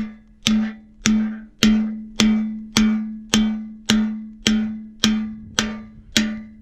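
Steady hammering on the steel of a grassland roller near its bearing: about a dozen evenly spaced blows, nearly two a second, each ringing with a metallic tone that fades before the next strike.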